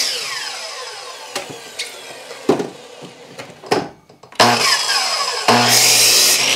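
Hitachi C10FCE2 10-inch compound miter saw crosscutting a block of chestnut. The motor switches off at the start and the blade spins down with a falling whine, with a few knocks in the quieter middle. About four seconds in the saw starts again, runs loud through a cut, and spins down near the end.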